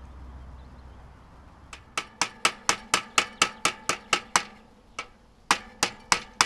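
Rapid hammer strikes, about four a second, each ringing briefly, in two runs with a short pause about halfway through.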